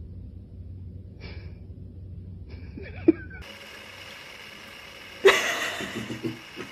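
A person's sudden loud, breathy outburst that dies away over about a second into a few short voiced sounds. Before it, a low steady hum and one sharp click.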